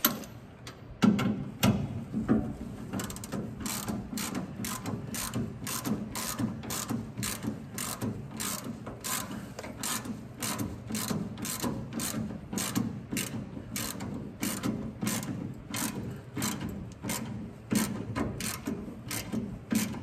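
Hand socket ratchet clicking in a steady rhythm, about two to three clicks a second, as a drive shaft bolt is run down snug.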